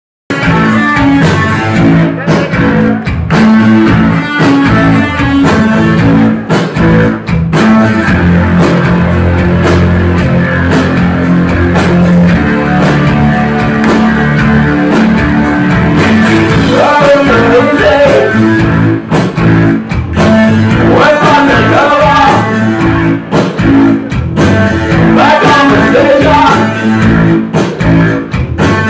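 Live rock band playing loud, heard from the crowd: electric bass guitar and keyboards over a full band sound, with a wavering higher melody line coming in about halfway.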